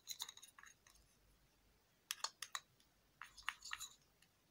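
A metal spoon stirring a thick green cream in a small cup, making quick light clicks and scrapes against the cup in three short runs. The mixture is being worked until it dissolves into a smooth cream.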